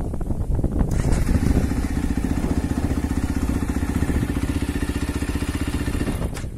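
Husaberg FE450E's single-cylinder four-stroke engine warming up after a cold start, idling with an even, rapid beat. It cuts out near the end as it is switched off.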